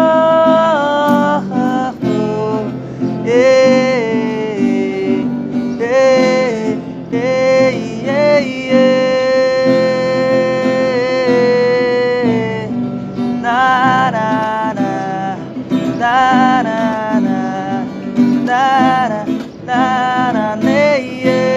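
Acoustic guitar accompaniment under a male voice singing a slow Bengali song melody in bending phrases, with one long held note about halfway through.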